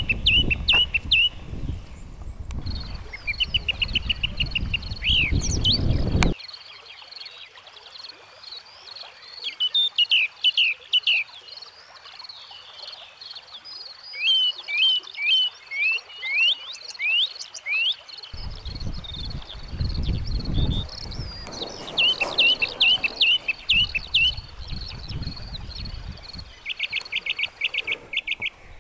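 Birds chirping and trilling in quick series over a steady high insect drone. A low rumble of wind and handling on the microphone runs under it for the first six seconds and again in the last third.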